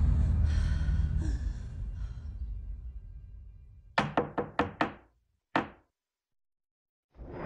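Music fades out, then knocking on a door: a quick run of five knocks, then one more after a short pause.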